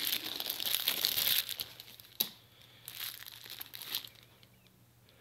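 Packaging wrapping crinkling and rustling as a knife and its sheath are handled out of the box, densest in the first second and a half, with one sharp click about two seconds in and a few softer rustles after.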